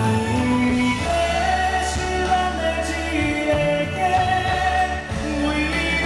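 Live band music with a singer holding long notes that slide gently in pitch over a steady bass line, with a few brief sharp hits.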